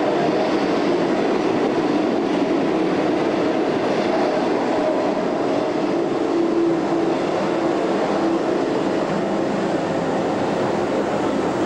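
Steady rumbling noise of a subway-style ride train running, with a faint hum of held tones.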